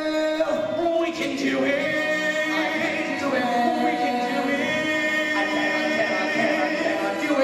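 A male voice holds a long sung note that breaks off about half a second in, then show-tune accompaniment music plays on with many shifting notes.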